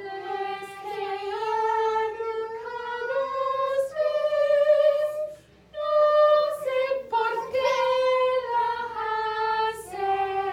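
A woman singing a Spanish children's song unaccompanied, holding long notes, with a short break about halfway through.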